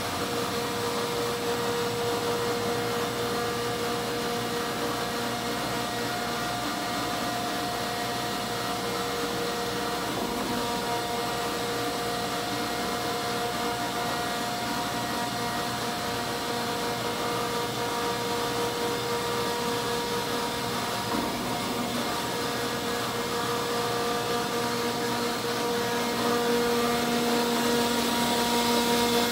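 Landis 24-inch by 72-inch plain cylindrical grinder running with no work between centres: a steady mechanical hum and whine from its motors and spindles. A lower tone joins near the end and the sound grows a little louder.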